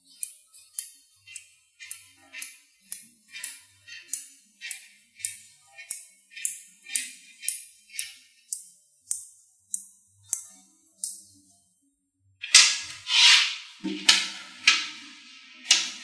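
Small neodymium magnet balls clicking one by one onto a cluster: sharp snaps about two a second. After a short pause near the end, a louder, denser clatter of many magnet balls as the assembled sheets are shifted and joined.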